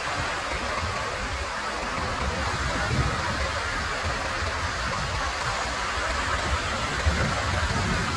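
Ocean surf washing onto a beach: a steady rushing hiss of breaking waves, with an uneven low rumble underneath.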